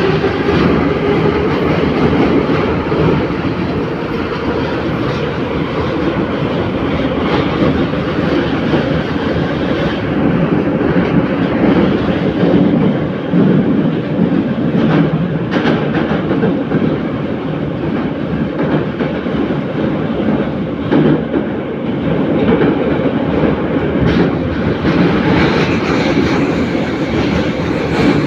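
Interior of a moving metro car of the Kyiv metro's ex-Warsaw 'numbered' (81-717/714) type running between stations: a loud, steady rumble of wheels on rail with a few rail-joint clicks.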